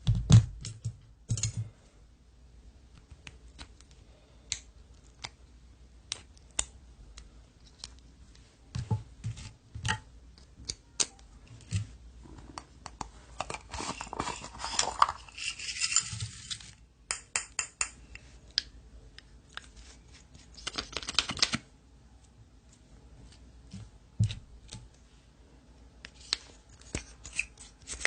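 Slime being squeezed and poked by hand: a string of sharp clicks and pops, with longer crackling stretches about halfway through and again a few seconds later.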